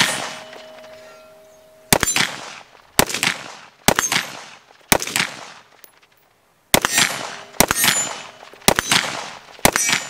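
Rifle shots from an AR-style rifle, eight of them at a steady, unhurried pace of about one a second with a longer pause midway. Each crack trails off in an echoing tail.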